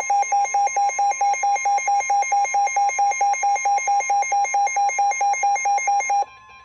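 Weather radio alert tone announcing a severe thunderstorm warning. A loud beeping alarm pulses about five times a second over a steady single warning tone. The beeping cuts off about six seconds in and the steady tone continues alone.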